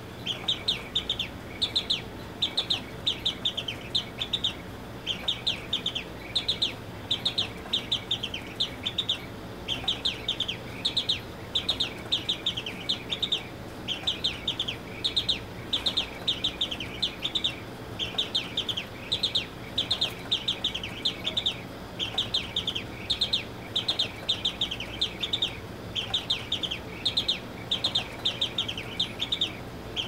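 Automaton singing bird in a c.1870 Japy Frères carriage clock, its bellows-blown whistle giving high, rapid chirping trills. The trills come in short phrases, about two to three a second with brief gaps, going on without a break.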